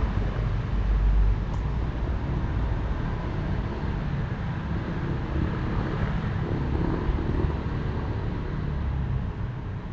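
Steady low outdoor rumble of background noise, a little louder for about the first second.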